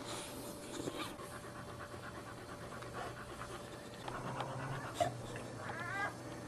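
Boxer mother dog panting steadily over her newborn puppies, with a few short high squealing cries near the end.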